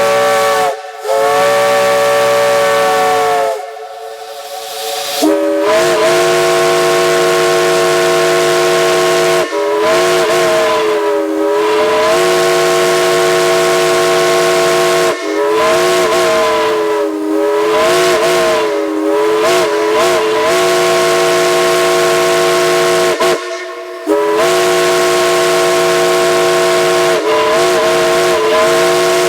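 Chime steam whistles blown in long blasts, each sounding a chord of several notes that bends in pitch now and then as the valve is worked (quilled). A higher whistle sounds first, and after a short gap about five seconds in a lower-pitched whistle takes over with a string of long blasts.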